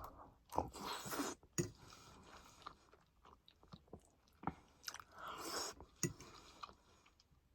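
Close-miked chewing and mouth sounds of a person eating, with several sharp smacks or crunchy bites spread through, between softer wet chewing.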